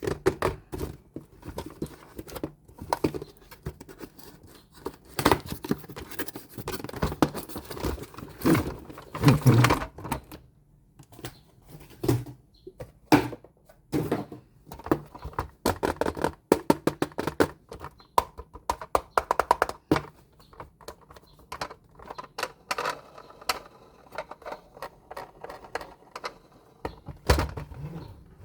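Dense, irregular clicks, taps and knocks from toys and their packaging being handled and unboxed at close range.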